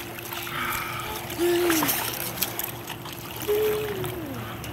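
Pool water splashing and dribbling as a child kicks and paddles on a foam noodle. Twice a short vocal sound falls in pitch, about a second and a half in and again near the end.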